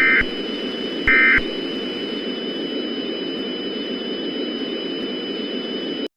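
Emergency Alert System end-of-message data bursts: two short, buzzy digital chirps about a second apart, the last of the three that close an alert. A steady radio hiss with faint high tones runs under them and cuts off suddenly about six seconds in.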